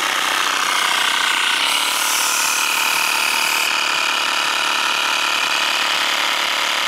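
Cheap 12 V mini piston air compressor, fitted with an added 60 mm cooling fan, running steadily under load while pumping up a car tyre. A high hiss lies over it for about two seconds, starting near the two-second mark.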